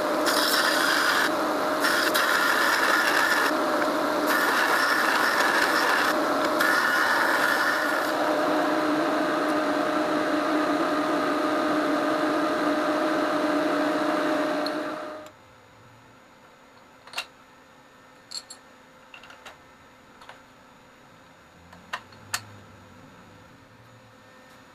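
Bench belt sander running with a steady hum while a small steel bracket is pressed against the belt off and on, giving a grinding hiss that comes and goes in the first several seconds. The noise stops abruptly about fifteen seconds in, leaving low room noise with a few light clicks and taps.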